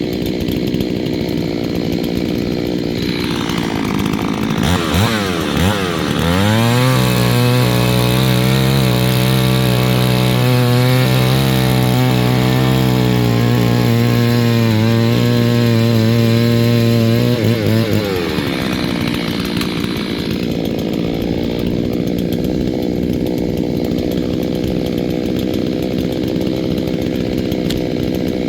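New two-stroke Holzfforma chainsaw being run in: it idles, revs up about five seconds in, holds a steady high speed for about twelve seconds, then drops back to idle.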